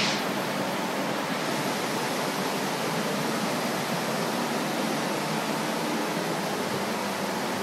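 Carpet-drying air mover (a blue snail-shell floor fan) running, an incredibly noisy steady rush of air.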